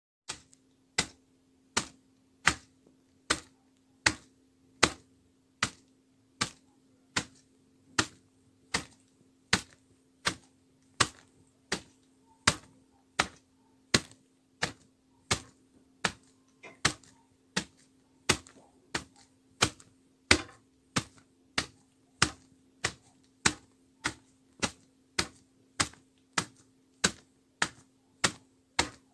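Sharp clicks repeating at an even pace, a little more than one a second and quickening slightly in the second half, over a faint steady low hum.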